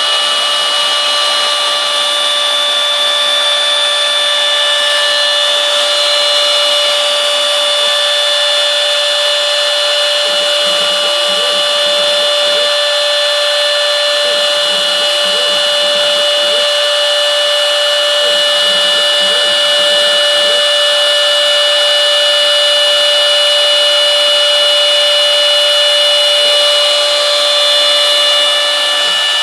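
The router spindle of a homebuilt CNC mill runs with a steady high-pitched whine while its small bit cuts hexagonal pockets in florist foam. A lower rumble comes and goes three times in the middle.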